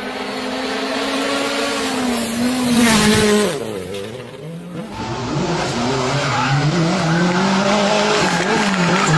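Rally car engines at high revs. One car passes at full throttle about three seconds in, its note dropping as it goes by. After a short lull, another car's engine revs up and down as it slides through a corner.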